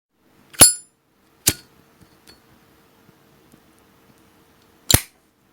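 Metallic clicks of a Zippo-style petrol lighter: a sharp ringing clink about half a second in, a second click about a second later, and another sharp clack near the end.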